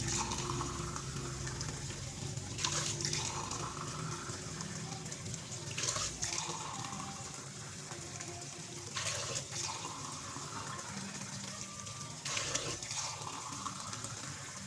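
Kitchen tap running into a drinking glass held over an aluminium pot in a stainless steel sink, as the pot is filled glass by glass. The splashing surges louder about every three seconds.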